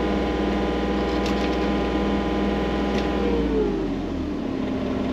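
Skid loader engine running at raised throttle, then dropping back to idle about four seconds in.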